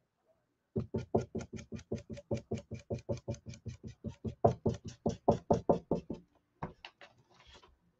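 A stain bottle's dauber tapped rapidly against the edge of a decoupaged wooden board, about five taps a second, with a few fainter taps near the end. The edges are being darkened with Distressed Walnut stain.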